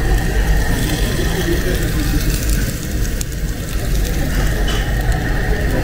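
Steady low rumble of restaurant background noise with a thin steady whine, faint voices of other diners and a few light clicks.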